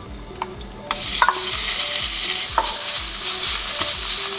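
Chopped raw bacon hitting a hot nonstick frying pan: it starts sizzling suddenly about a second in, then fries with a steady sizzle as it is stirred with a wooden spoon.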